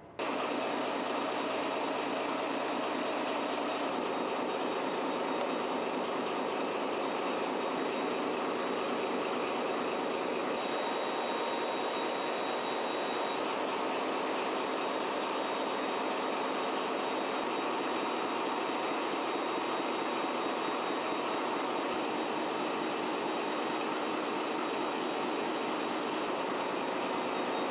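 Steady, loud machinery drone of a cargo ship's engine room, an even roar with a faint high whine laid over it.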